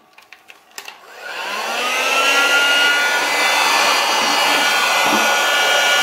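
Electric heat gun switched on: a click, then its fan motor spins up in a rising whine about a second in and runs steadily with a rush of hot air, shrinking a band of heat-shrink tubing onto a speaker cable.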